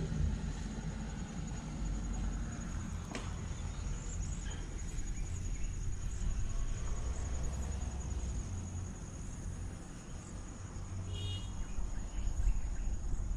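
Insects chirring in a steady, high-pitched trill over a louder, uneven low rumble.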